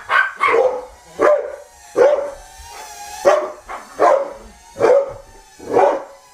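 A dog barking repeatedly, a bit more than one bark a second, with a short wavering tone between barks about halfway through.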